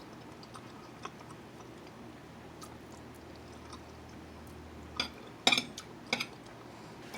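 A person chewing food with the mouth close to the microphone, quiet with a few sharp clicks and smacks, most of them about five to six seconds in.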